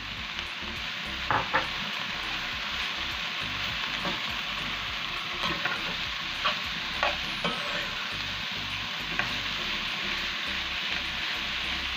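Garlic, onions and other chopped aromatics sizzling in oil in a frying pan, with a steady hiss. A utensil stirring them knocks against the pan about six times, sharpest twice about a second and a half in.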